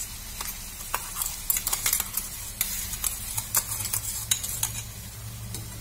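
Garlic-tomato chutney paste sizzling in hot oil in a small aluminium kadai, just thinned with water, with scattered sharp pops and clicks as a steel spoon stirs it. A steady low hum runs underneath.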